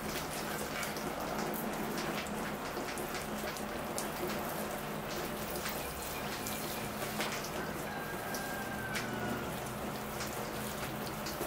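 A steady stream of water from a watering can falling on a Portulacaria afra bonsai forest, splashing on the leaves, rocks and gravel soil in the pot. It is rinsing off a soap-and-water spray.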